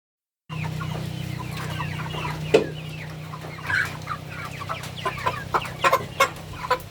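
A flock of 45-day-old chickens clucking, with many short calls that grow louder and more frequent toward the end, over a steady low hum. There is one sharp knock about two and a half seconds in.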